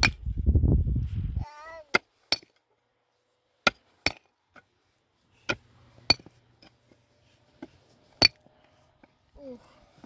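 A series of about seven sharp, ringing knocks at irregular intervals, some in quick pairs, after a low rumble that stops about a second and a half in.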